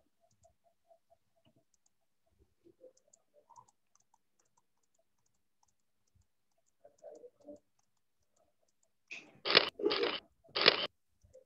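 Faint clicking, then three short, loud bursts of scraping noise in quick succession near the end.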